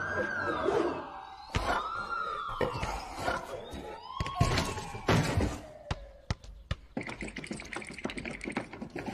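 Cartoon sound effects: a whistling tone that rises quickly and then slides down, three times over about six seconds, each time lower, as a basketball spins around the hoop's rim, with sharp knocks in between. In the last couple of seconds there is a buzzy rattle with rapid clicks.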